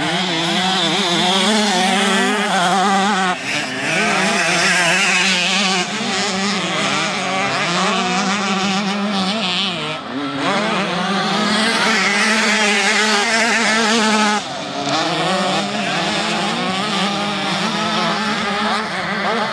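Motocross dirt bikes' engines revving hard, the pitch climbing and dropping over and over as the riders accelerate and shift. The sound changes abruptly a few times.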